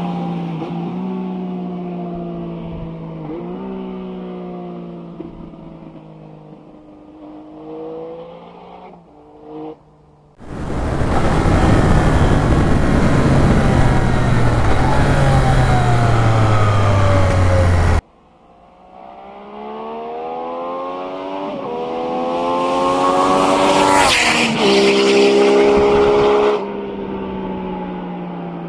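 Yamaha XSR900's three-cylinder engine through a MIVV Oval Carbon exhaust, passing by several times. The note falls away as the bike pulls off, then comes a loud close pass with much rushing noise that cuts off suddenly. The bike then approaches with rising revs, is loudest as it passes, and its pitch drops sharply as it goes away.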